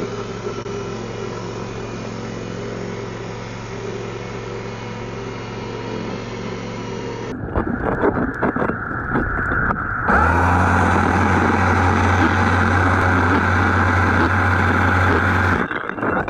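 Hydraulic core drill boring through a concrete block seawall. A steady mechanical hum runs first, then, heard underwater, a few knocks give way about ten seconds in to a loud, steady drilling drone: the core bit grinding through the concrete.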